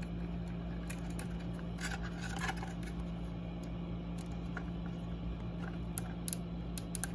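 Plastic cable ties being handled and threaded through their holes: scattered light plastic rustles and clicks, with a few sharper ticks near the end, over a steady low hum.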